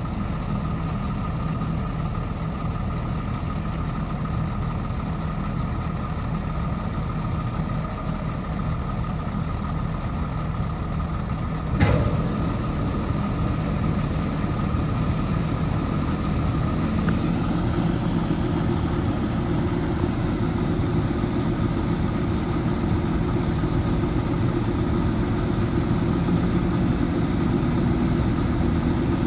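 A vehicle engine runs steadily at an even speed, with a faint steady whine over it. About twelve seconds in there is a sharp click, and the sound changes to a fuller engine drone.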